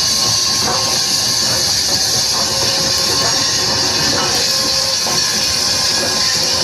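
Pennsylvania Railroad T1 4-4-4-4 duplex steam locomotive giving off a loud, steady hiss of steam, with train running noise underneath.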